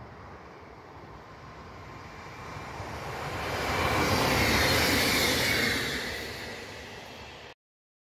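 Passenger multiple-unit train passing by. Its noise swells to a peak about four to five seconds in, then fades, and cuts off abruptly near the end.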